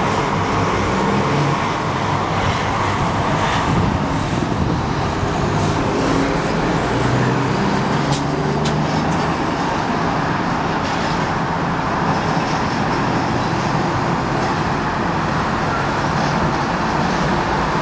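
Steady distant road traffic noise: an even wash of tyres and engines.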